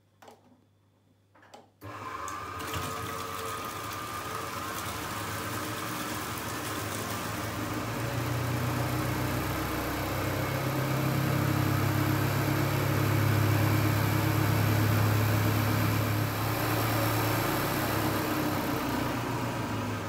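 A few light clicks as the outlet chute is set, then about two seconds in the 1960s Hoover 3004A spin dryer starts and runs with a steady motor hum, growing louder partway through as it spins up. Soapy water spun from the laundry gushes from its chute into the washing machine tub.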